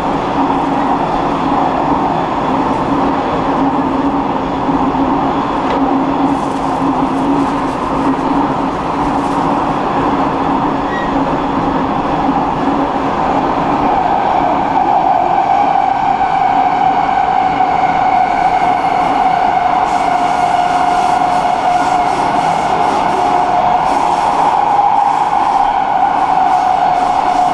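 Warsaw metro train running through the tunnel, heard from inside the carriage: a steady rumble of wheels and motors. About halfway through, a higher whine comes in and slowly sinks in pitch.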